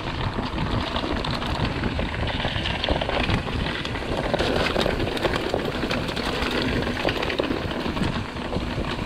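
Mountain bike riding over a rough gravel and dirt track, picked up by a handlebar-mounted camera: tyres crunching over stones with a constant rattle and clatter of the bike over the bumps.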